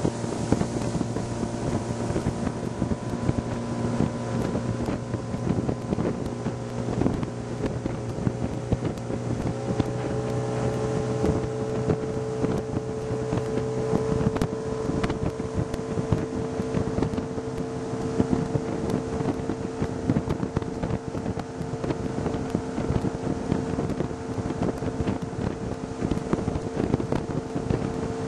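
Small boat's outboard motor running steadily underway, with wind on the microphone. The engine note rises a little about ten seconds in.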